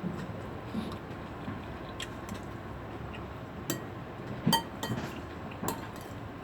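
A person eating, with chewing and a few sharp clicks and brief clinks of tableware, the loudest a little after halfway, over a steady low hiss.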